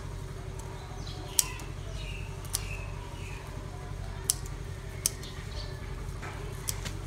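Scissors snipping through kangkong (water spinach) stems during harvest: about five sharp snips, irregularly spaced a second or so apart, over a steady low hum.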